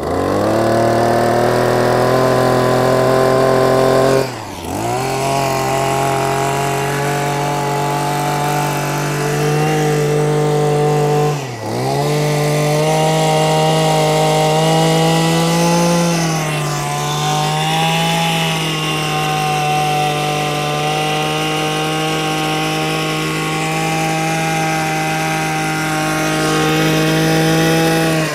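Tanaka 34 cc two-stroke brush cutter engine running at high revs. It revs up at the start, drops briefly twice (about four and eleven seconds in), each time coming straight back up, and wavers in pitch once more before it stops at the end. Going by the engine speed heard, the seller judges it to perform more like 31–32 cc than its labelled 34 cc.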